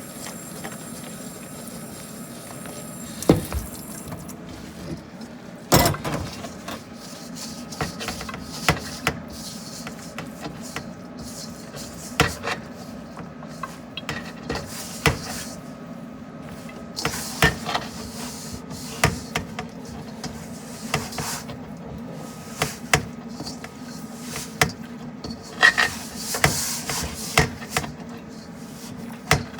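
Kitchen clatter: scattered clinks and knocks of utensils against bowls and dishes, over a steady low hum.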